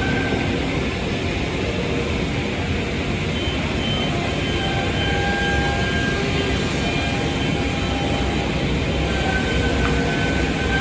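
CNC machining center running: a steady mechanical noise with faint whining tones that come and go.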